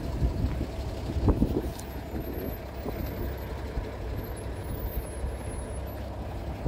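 Converted heavy truck's engine running with a steady low rumble while the truck manoeuvres, with one short knock about a second in.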